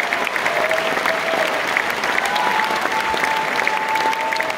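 Concert audience applauding, a dense steady patter of many hands clapping, with a thin held high tone rising above it for a couple of seconds from about halfway through.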